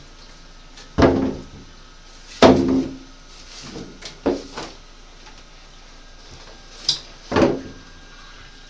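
A series of hollow knocks and bumps, four loud ones and a sharper click, each with a short ring, from the washing machine and its packaging being handled and moved during unboxing.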